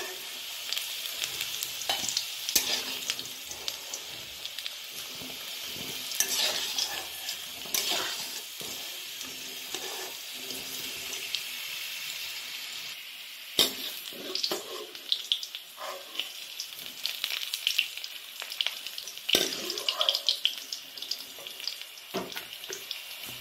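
Potato wedges sizzling in hot oil in a karahi as a metal spatula scrapes and knocks against the pan, lifting the fried potatoes out, with a few sharper metal clinks along the way.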